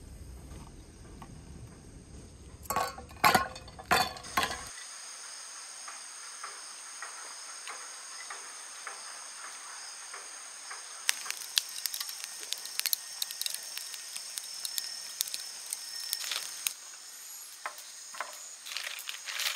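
Insects trilling steadily, in several high tones without a break. Early on there are a few sharp knocks, and in the second half there is a long run of light crackling clicks.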